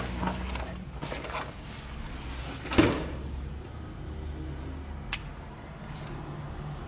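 A single sharp knock a little under three seconds in, then a fainter click about two seconds later, over a low steady hum.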